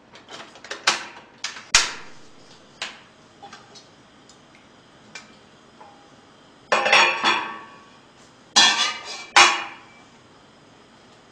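A pot, its lid and a ladle clinking and knocking: a string of sharp clicks at first, then two bursts of clattering scrapes with a metallic ring as soup is ladled out of the pot.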